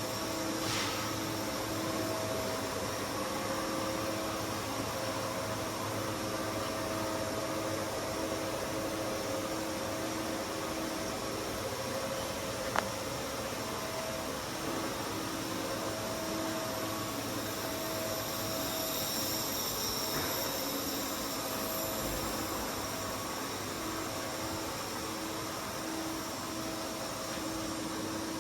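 Mazak Quick Turn Smooth 350MY CNC lathe running under power: a steady mechanical hum with a few steady tones that fade in and out, and a single sharp click about 13 seconds in.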